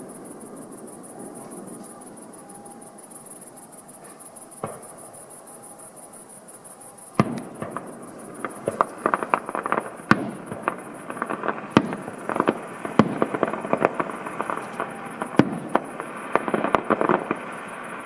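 Fireworks going off: a single bang about five seconds in, then from about seven seconds in a rapid, irregular string of sharp bangs and crackling reports.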